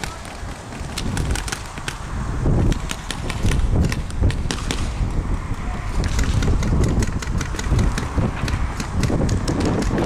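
Paintball markers firing in quick, irregular volleys, sharp pops and cracks one after another, over a low, uneven rumble.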